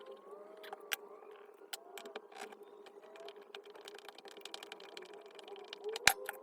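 Scattered small clicks and knocks of parts and hand tools being handled on a work surface over a faint steady hum, with one sharper click near the end.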